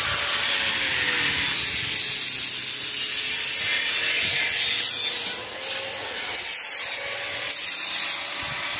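Electric arc welding on a stainless steel railing: a steady, loud crackling hiss from the arc, broken by a few short stops past the middle.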